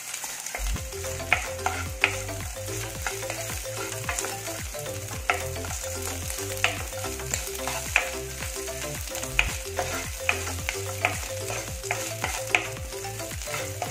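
Chopped coconut pieces sizzling as they fry in ghee in a nonstick pan. A wooden spatula scrapes and taps against the pan as they are stirred, in frequent short strokes.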